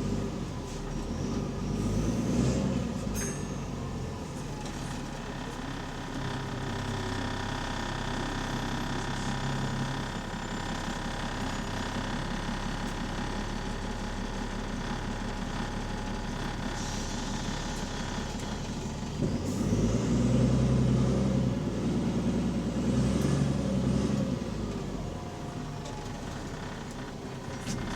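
Bus diesel engine heard from inside the bus, running with an exhaust leak. It grows louder about two seconds in, and again from about nineteen to twenty-five seconds.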